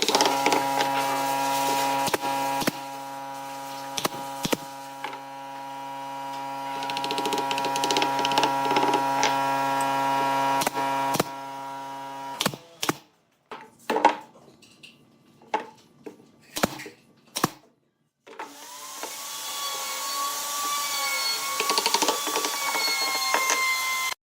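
Electric power tool running at a steady pitch for about twelve seconds, its loudness shifting as it works wood, then shutting off. Several knocks and clicks follow in a quieter stretch. A power tool then spins up with a rising whine and runs steadily.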